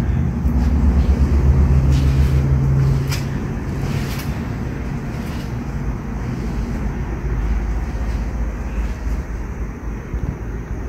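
Steady low rumble with a low hum over the first few seconds, and a few faint knocks.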